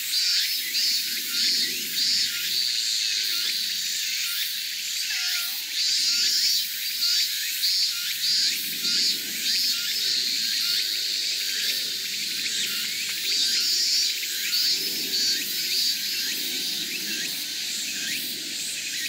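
Chorus of cicadas shrilling in quick pulsing phrases that now and then run together into a steady buzz.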